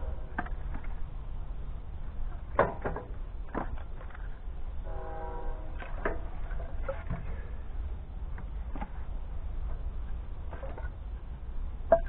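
Split firewood pieces knocking and clacking against each other as they are handled and stacked, several sharp knocks at uneven intervals over a steady low rumble. Two short pitched sounds, one at the start and one about five seconds in.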